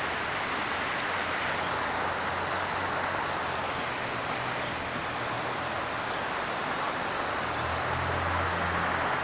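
Heavy rain falling steadily. A low hum runs underneath and grows louder near the end.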